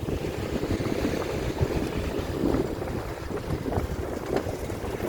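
Wind buffeting the microphone while travelling by road: a continuous, fluttering low rumble with small irregular knocks.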